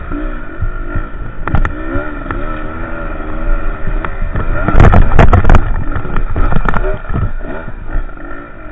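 Enduro dirt bike engine revving up and down as it climbs over rock, heard from a mount on the bike, with rattles and knocks from the bike bumping over stones, loudest about five seconds in.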